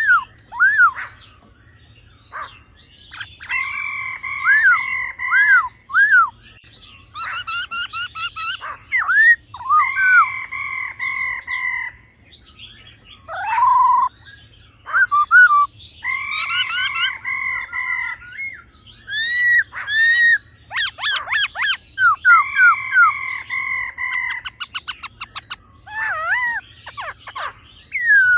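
Black-throated laughingthrushes calling: loud whistled song in repeated phrases of arched notes, the male's song, broken now and then by fast rattling series, the female's 'ro' call.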